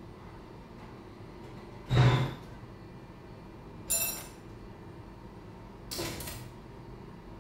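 Three separate short knocks or clinks, about two seconds apart. The first is the loudest and dull. The second rings briefly and brightly. The third is fainter and short.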